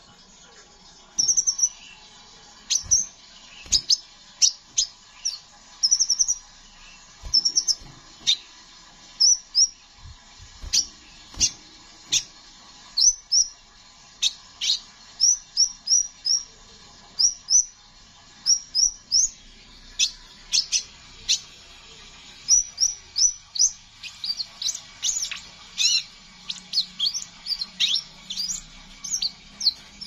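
Crimson sunbird giving rapid series of short, sharp, high chirps, many sweeping downward, packed closer together near the end.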